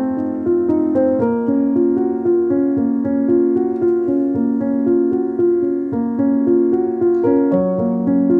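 Background piano music: a gentle melody with steady sustained notes.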